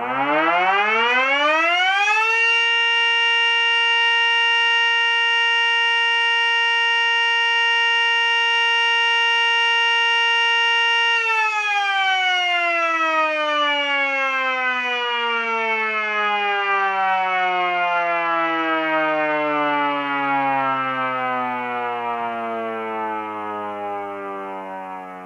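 Mini Sterling Model M miniature siren, dual-ported with 16-port and 8-port sides, sounding without a cardboard baffle in front of it. It winds up over about two seconds, holds a steady tone for about nine seconds, then winds down slowly through the rest.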